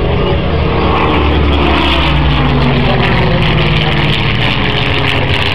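A Second World War fighter's V12 piston engine running as the aircraft flies overhead, its pitch shifting about two seconds in.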